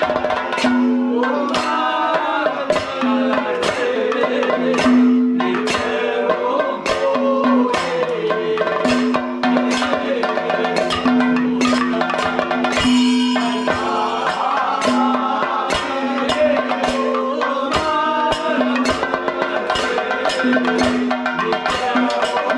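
Men singing a ritual song in chorus, kept in time by a hand-held bronze gong (chengila) struck with a stick, a steady beat of about two metallic strikes a second.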